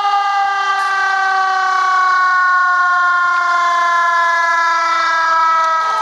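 Air raid warning siren sounding one long tone that slowly falls in pitch.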